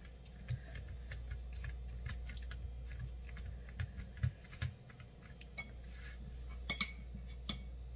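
Hands pressing and stretching a piece of biscuit dough flat on a plastic cutting board: soft thumps and light taps, with two sharp clicks near the end, over a steady low hum.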